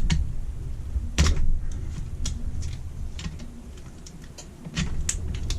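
Scattered light clicks and taps of small metal carburettor parts and tools being handled during dismantling, over a steady low hum. The loudest clicks come about a second in and near the end.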